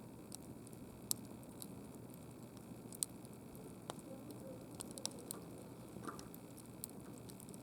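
Wood campfire crackling, with irregular sharp pops and snaps over a low steady rush of the flames.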